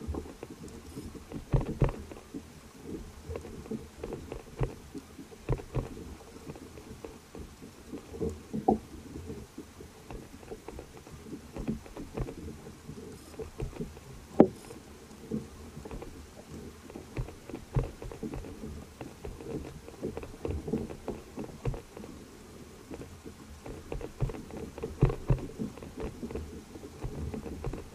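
Water lapping against a kayak hull at sea, with irregular knocks and taps on the boat.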